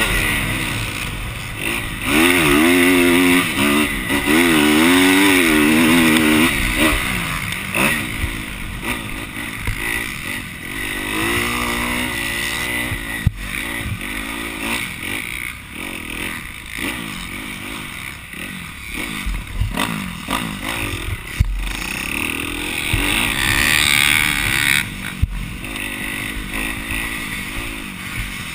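Motocross dirt bike engine heard from the rider's helmet, revving up and down in pitch as the throttle is worked around the track, over a constant rush of noise, with a few sharp knocks.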